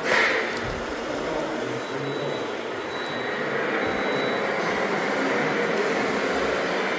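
Radio-controlled model trucks running, a steady mechanical drone, with a short, sharp burst right at the start.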